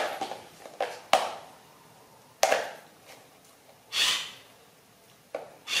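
A handful of sharp knocks and taps on a hard floor, irregularly spaced, with a short swishing rush about four seconds in.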